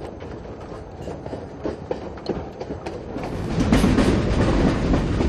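A dense, steady clattering of many close-packed clicks, growing louder about three and a half seconds in.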